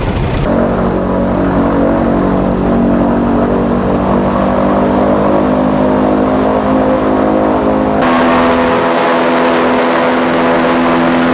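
Airboat's engine and air propeller running steadily as the boat travels across the marsh, a loud, even drone. Its tone changes abruptly about half a second in and again about two-thirds of the way through.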